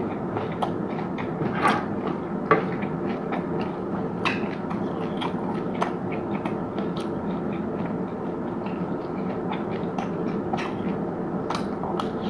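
Close-miked eating: wet chewing with frequent small crackling clicks and a few sharper crunches, over a steady low background noise.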